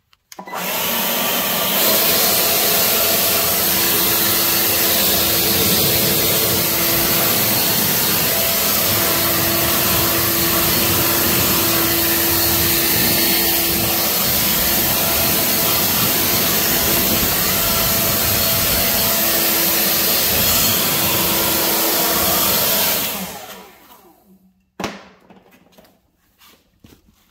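Vacuum cleaner switched on, running steadily and loudly with a faint motor whine, then switched off and winding down about 23 seconds in; a single knock follows shortly after.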